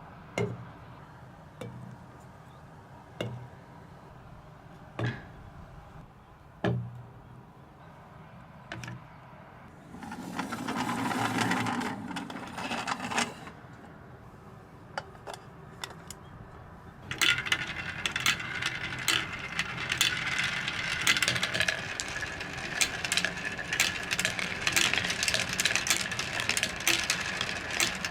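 Marbles on a wooden HABA marble run: single clacks every second or two, then a stretch of marbles rolling along the track, then from about two-thirds of the way in a dense, continuous clatter of many marbles knocking on track and each other.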